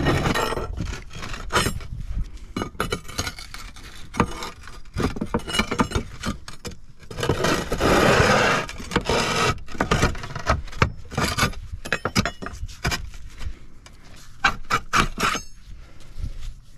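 Concrete flat roof tiles knocking, clinking and scraping against each other as they are set back into place over a solar tile hook. There is a run of sharp clacks, with a longer scrape about halfway through.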